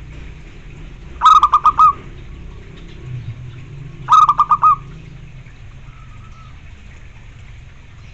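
Zebra dove (perkutut) calling: two loud phrases of about five quick staccato cooing notes each, about three seconds apart.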